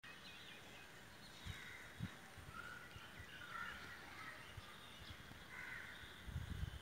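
A crow cawing, short calls repeated three or four times. Low thumps about a second and a half and two seconds in, and a low rumble near the end.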